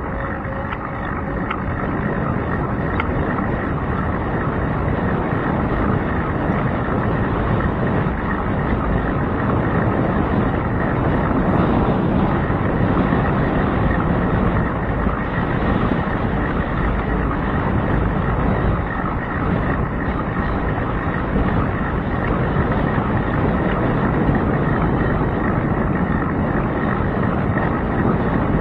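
Steady wind noise and rolling road rumble on the microphone of a handlebar camera on a moving bicycle.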